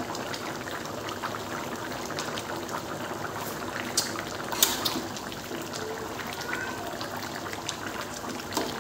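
Turmeric beef curry in coconut milk bubbling steadily at a boil in a large pan. A metal ladle stirs it, knocking against the pan in a few sharp clicks around four seconds in.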